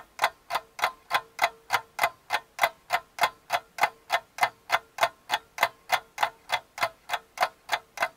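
Clock-ticking sound effect, about four even ticks a second, with a faint steady hum under it. It serves as a countdown timer for answering a quiz question.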